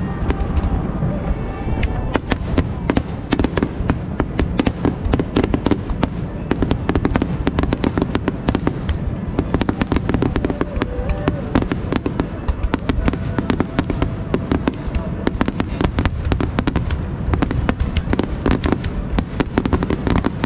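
Aerial fireworks shells bursting in rapid, continuous succession: many sharp cracks a second over a steady booming rumble, with no break.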